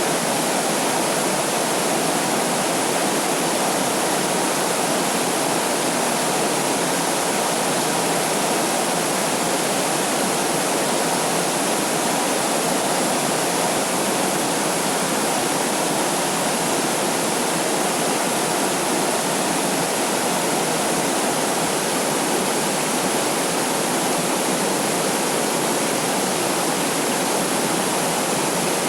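A waterfall's steady, even rush of falling water, with no change in level.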